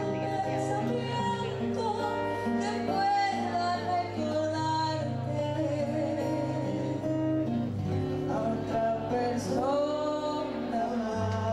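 A woman sings a slow song in Spanish, holding long notes, accompanied by a steel-string acoustic guitar strummed live.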